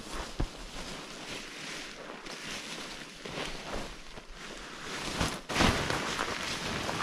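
Creek water running over rocks: an even rush of noise with small irregular splashes, and one louder splash or crunch about five and a half seconds in.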